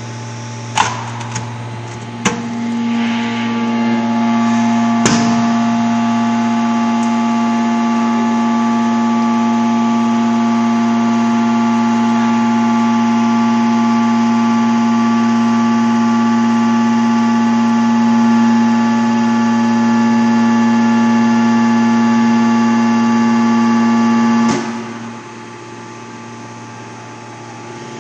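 Hydraulic press closing and holding a deep-drawing die. The hydraulic unit's hum swells into a loud, steady whine about two seconds in and holds while the die stays shut, then cuts off a few seconds before the end, leaving the lower hum. A few sharp metal knocks come in the first five seconds as the die closes.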